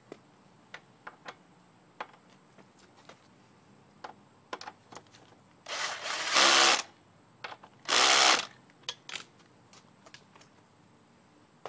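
Handheld power drill running in two bursts, about a second and then half a second long, driving a nut on a scooter engine's mounting bolt. Small clicks and taps of tools and parts come before and after.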